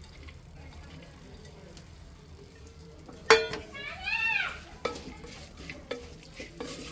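A wooden spatula stirs sliced coconut, onions and masala frying in a clay pot, with a faint sizzle underneath. A sharp knock about three seconds in is the loudest sound, followed by a short pitched sound that rises and falls, then a few lighter knocks.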